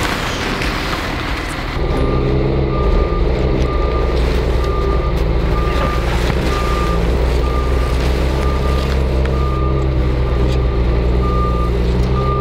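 Snow-grooming machine working the ski slope: its engine runs steadily while a reversing alarm beeps over and over at an even pace. The machine comes in about two seconds in.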